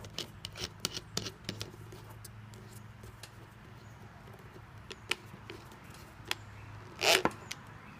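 Small clicks and taps of a copper soldering iron tip being fitted into a drill chuck and the chuck being turned by hand, several quick clicks in the first second or so and a few single ticks later, with a louder brief scrape about seven seconds in. A steady low hum runs underneath.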